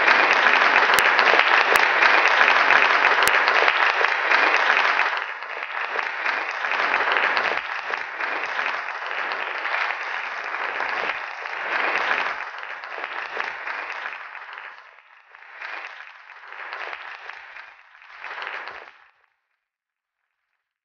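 Crowd applause, loud and dense for about five seconds, then dying away in several fading swells and stopping about nineteen seconds in.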